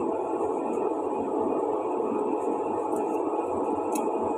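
A steady, even rushing noise with a few faint, short ticks of a knife paring peel, the sharpest about four seconds in.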